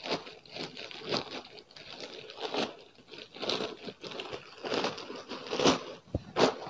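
Plastic courier mailer bag being torn open by hand: irregular crinkling and ripping of the plastic, with the loudest rips near the end.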